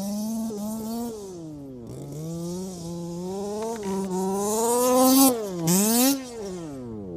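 HPI Baja 5B, a 1/5-scale petrol RC buggy, its two-stroke engine revving up and down repeatedly as it drives across the grass. It is loudest about five to six seconds in, as it drives by.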